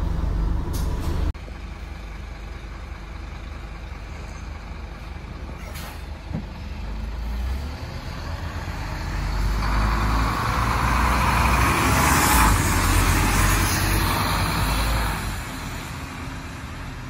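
The Scania N230UD double-decker bus heard from inside, its diesel engine and running gear giving a steady low rumble. The sound grows louder over several seconds with a rising hiss, then eases off near the end.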